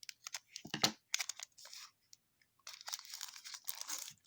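A baseball card pack's wrapper being torn open and crinkled in the hands. There are sharp crackles and a knock about a second in, a short lull, then a longer run of crinkling.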